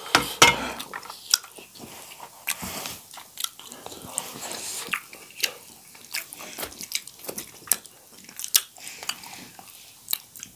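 Close-miked chewing of rice and curry eaten by hand, with many short wet mouth clicks and smacks.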